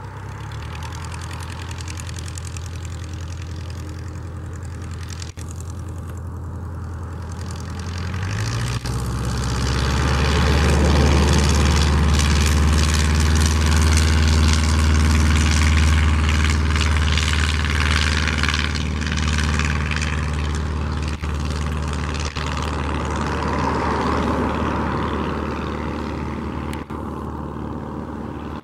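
Fisher Horizon 2 light aircraft's propeller engine running at low power, then opening up to full throttle about a third of the way in for the takeoff roll. It is loudest as the plane passes close by, then fades somewhat as it climbs away.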